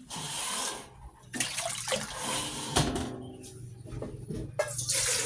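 Water splashing as it is poured from a plastic dipper, in three pours of a second or so each with short pauses between.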